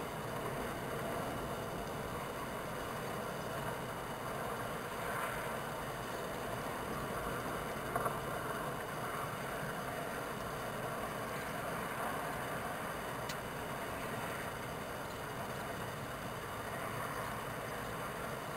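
Steady rushing background noise, swelling gently now and then, with a single brief click about eight seconds in.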